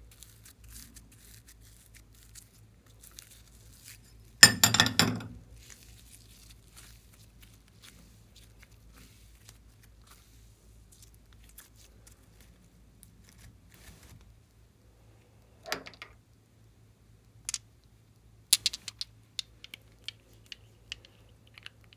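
Orange glitter slime being peeled off a tray and pulled apart by hand, with one loud crackling tear about four and a half seconds in. Near the end come short sharp crackles and clicks as the slime is pressed into a dish of foam beads.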